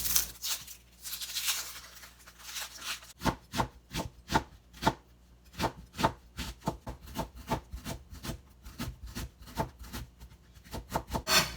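Kitchen knife mincing onion on a cutting board: a run of quick, even knocks, about four to five a second, beginning about three seconds in after softer rubbing sounds.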